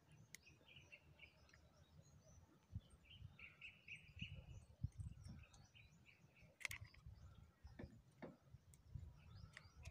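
Near silence with faint bird chirps, a short run of quick chirps about three to four seconds in, over a low rumble, and a sharp click about two-thirds of the way through.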